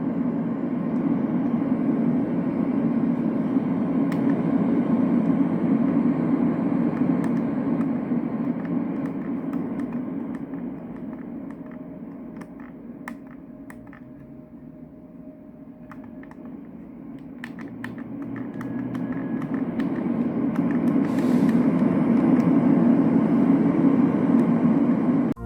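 LectroFan classic white noise machine playing a steady, low, rushing noise. It fades down to about half its loudness midway, then comes back up, with a few faint clicks along the way.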